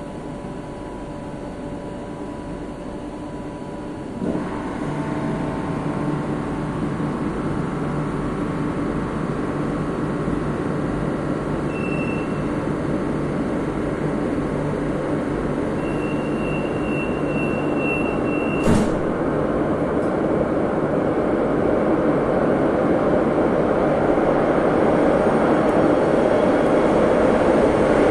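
Madrid Metro 8000-series train running through a tunnel, heard from inside the front car: a steady rumble of wheels and motors that grows gradually louder. A thump about four seconds in brings in a low hum. A faint high tone sounds twice midway, and a single sharp click comes about two-thirds through.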